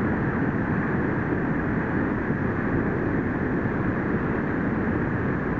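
Steady wind noise buffeting the microphone, an even low rumbling hiss with no distinct events.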